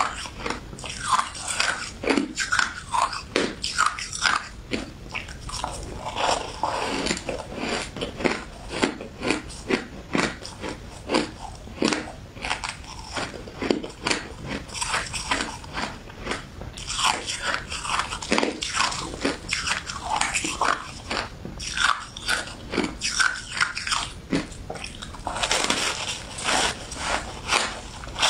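A person biting and chewing shaved ice close to the microphone: a dense, irregular run of crunches and crackles.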